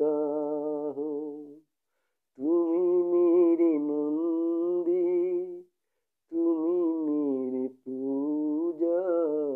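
A man singing a slow melody in four long held phrases, with short pauses between them.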